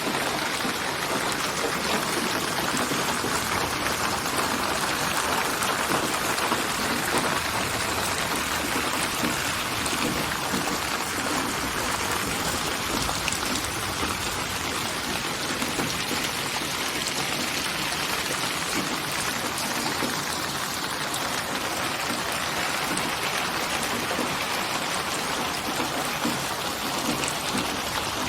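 Steady rain falling, a dense even patter of drops with no break.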